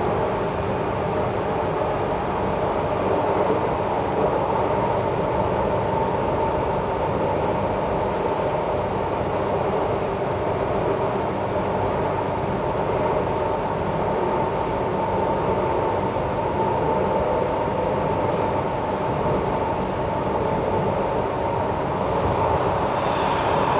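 Cabin noise of an SMRT C751B metro train running between stations: a steady rumble of wheels on rail with a steady hum near the top.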